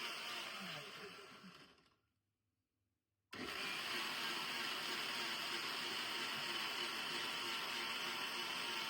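Electric blender running steadily on strawberry juice. The sound drops out into about a second of dead silence partway through, then resumes.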